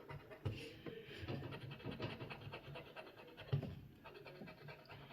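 A scratch-off lottery ticket being scratched with a scratcher tool, faint rapid rasping strokes across the card.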